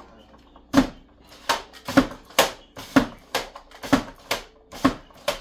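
V-blade mandoline slicer cutting a potato: the hand-guard holder is driven down across the blade again and again. Each stroke is a sharp knock, about ten strokes at roughly two a second.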